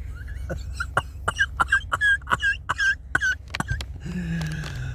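A man making a quick run of short throaty, squeaky vocal sounds, then a low drawn-out groan near the end, over a steady low hum. The sounds fit his complaint of a sore back and neck.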